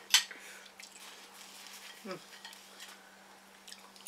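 Noodles slurped from a bowl of instant ramyun: one short loud slurp just after the start, followed by soft clicks of a utensil against the bowl, over a faint steady hum.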